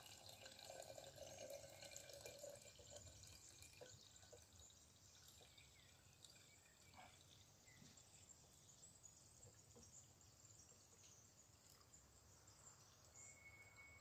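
Very faint trickle of tea poured in a thin stream from a small glass bottle into a glass jar, with a few soft drips; a little stronger in the first three seconds.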